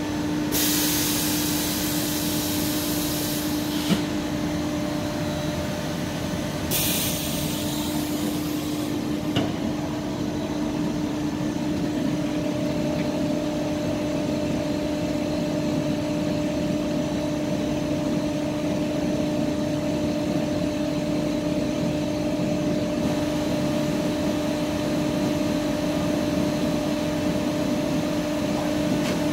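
Francis Shaw K1 Intermix rubber mixer running its automatic mixing cycle on a dry test run: a steady electric drive hum with a constant tone. Two bursts of compressed-air hiss come in the first nine seconds, and about nine seconds in the hum changes as the rotors step up from 30 to 50 RPM for the final mixing step.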